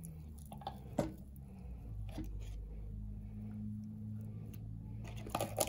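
A steady low hum that grows stronger about two seconds in, with a sharp click about a second in and a few quick clicks and knocks near the end.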